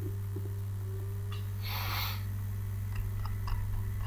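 Steady low electrical hum in the recording chain, with a short hiss about two seconds in and a few faint clicks near the end.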